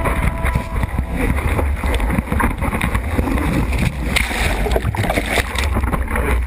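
Surf rushing and splashing over a camera mounted on a surfboard, with a heavy low rumble of water buffeting the microphone.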